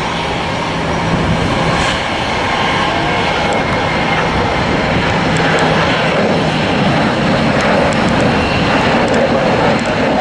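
Jet airliner's engines running loud and steady, growing slightly louder in the second half.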